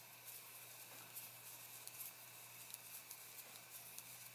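Near silence: faint, scattered ticks of knitting needles and yarn being handled over a steady low hiss.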